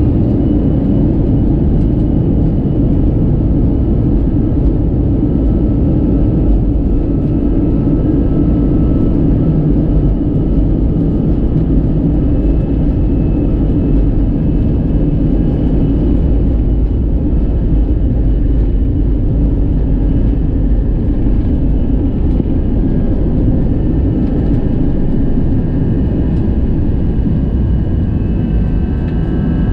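Airbus A321-200 jet engines at takeoff power heard from inside the cabin: a loud steady roar through the takeoff run and climb-out, with faint high fan whines that grow stronger in the last several seconds.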